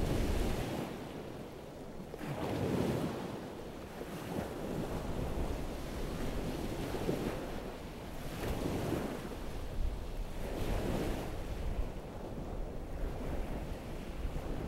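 Surf washing onto a sandy shore in slow, repeating swells, with wind buffeting the microphone, the wind rumble strongest right at the start.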